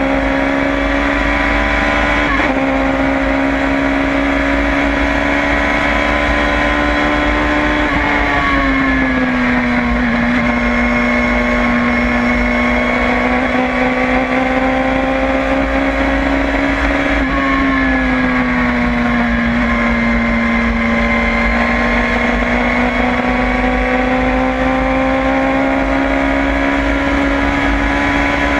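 LFC Tornado prototype race car's engine heard on board at racing speed, loud and steady. Its pitch dips twice, about 8 and 17 seconds in, then climbs slowly again.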